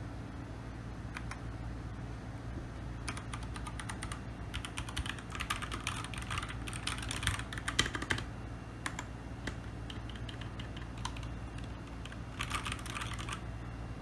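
Typing on a Keychron K2 mechanical keyboard with brown switches: a few single key presses, then a fast run of key clacks for about five seconds, scattered presses, and a short second run near the end.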